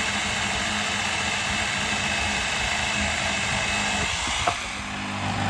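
Reciprocating saw running steadily as it cuts the end off a piece of timber, stopping with a click about four and a half seconds in.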